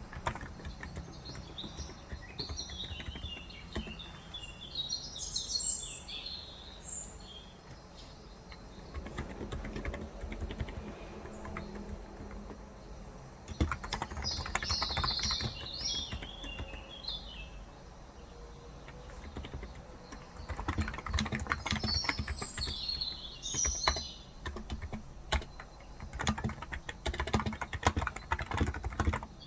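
Typing on a Cox Endeavor electro-capacitive 35 g tenkeyless keyboard, in runs of keystrokes with short lulls. Birds chirp in three or four spells of quick twittering.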